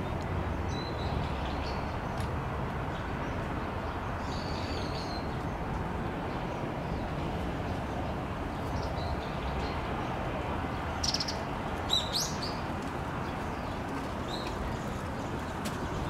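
Small birds chirping now and then over a steady outdoor background hum, with a quick cluster of sharper chirps about two-thirds of the way in.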